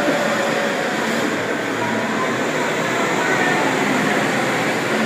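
Loud, steady late-night street noise: a dense, even din with no single clear source standing out.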